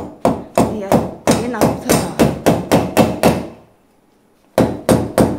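Hammer striking a fastener through a bed rail's mounting plate into a wooden bed frame: about a dozen quick blows, roughly three a second, then a pause of about a second and four more blows near the end.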